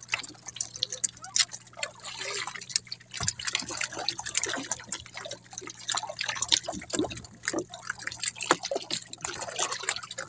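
Water dripping and splashing around a small outrigger boat as a wet multi-hook fishing line with fish on it is hauled in by hand: irregular little splashes and drips, over a faint steady low hum.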